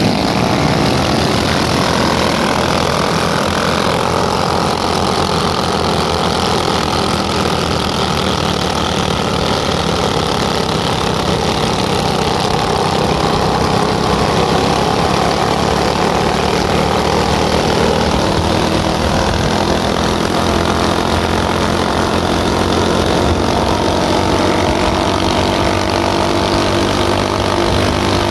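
Motorcycle engine running while riding down a street, its pitch shifting gradually, mixed with wind rush on the microphone.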